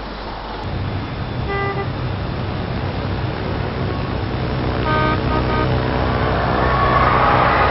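Road traffic: a steady engine rumble with short car-horn toots about a second and a half in and again around five seconds in, and a rush of noise building near the end.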